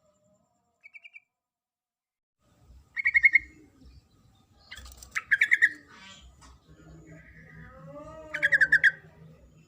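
Yellow-vented bulbul (trucuk) calling: a faint short trill, then three loud, rapid chattering bursts roughly two and a half seconds apart. The uploader gives it as a female's call to a male. A lower, rising-and-falling call sounds beneath the last burst.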